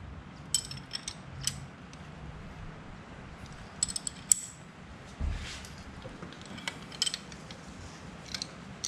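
Hand wrench tightening the upper bolts of a motorcycle's front motor mount: scattered metal clicks and clinks in short bunches, with one dull knock about five seconds in.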